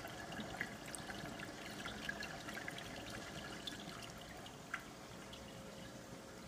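Aquarium water trickling and splashing at the agitated surface, with many small drips and a faint steady hum underneath.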